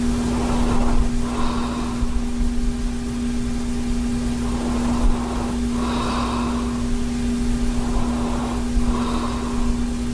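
A sleeping man breathing heavily, with slow paired in-and-out breaths about every three to four seconds, over a steady low electrical hum.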